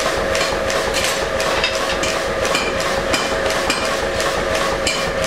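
Mechanical power hammer striking a handled top die on a forged leaf blank in a steady rapid rhythm, about three to four blows a second, over the machine's steady hum.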